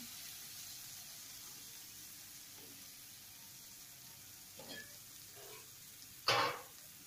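Vegetables sizzling steadily in a frying pan during a veg chow mein stir-fry, with a brief louder clatter about six seconds in as boiled noodles are pushed into the pan.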